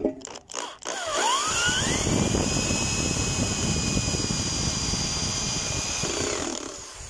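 Power drill driving a long screw into a Maytag washer's transmission brake housing, pulling the spring-loaded brake closed. A few handling clicks, then about a second in the drill spins up with a rising whine, runs steadily, and winds down near the end.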